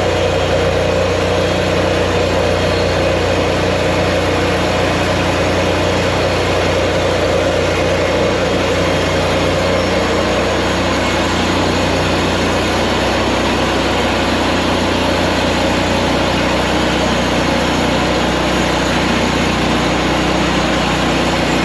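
Engine of a Mechmaxx 36-inch bandsaw sawmill running steadily at a constant, unbroken pitch.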